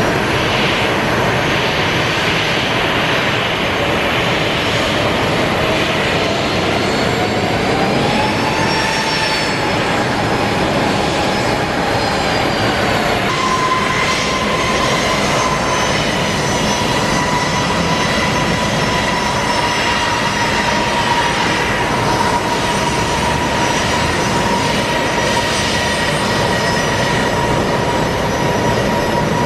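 Jet engines of taxiing airliners at idle thrust: a steady loud rush with a whine that rises and falls about a third of the way in. From about halfway a steady high whine comes in from a Boeing 737-800's CFM56 turbofans.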